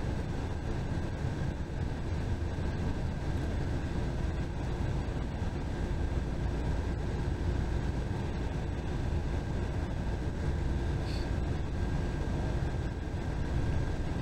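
Steady low rumble of a bus travelling at highway speed, its engine and tyre noise heard from inside the cabin, with a faint steady whine above it.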